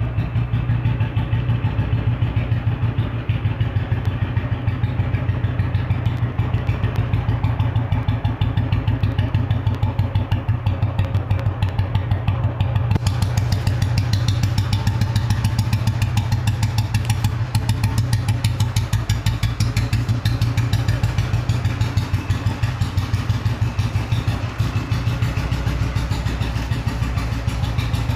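1966 Royal Enfield Bullet Standard 350's single-cylinder four-stroke engine running steadily with an even, rapid thump.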